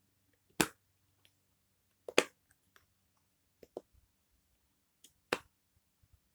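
Silicone bubbles of a Simple Dimple fidget being pushed in and out, giving about half a dozen sharp pops spaced a second or so apart, some in quick pairs.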